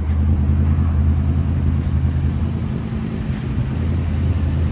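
A car engine idling with a steady, low-pitched rumble.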